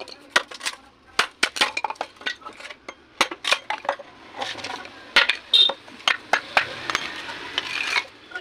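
Machete chopping into a dry bamboo tube: a run of sharp, irregular knocks and cracks as strips are split off, with a rasping stretch in the second half.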